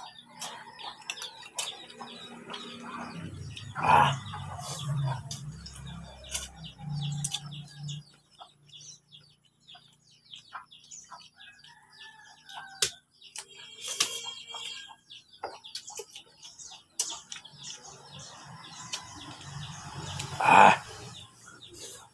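Chickens clucking, with two loud short calls about four seconds in and near the end, over the small clicks and smacks of a man eating with his hands.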